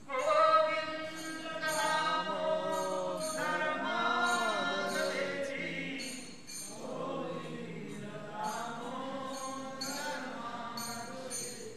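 A man singing a devotional song solo into a microphone: long held notes that bend in pitch, with a wavering, drawn-out note about four seconds in.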